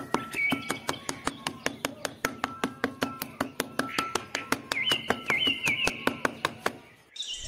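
Small metal hand trowel scraping and smoothing sand in quick strokes: a fast run of sharp scratchy clicks, about five or six a second. Faint bird-like chirps sound behind it.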